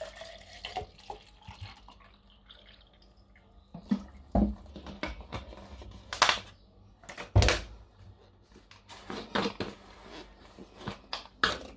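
Water pouring from a plastic bottle into a plastic shaker cup for about the first second and a half. Then a run of sharp plastic clicks and knocks as the bottle is capped and a plastic powder canister is handled and opened, with two louder knocks in the middle.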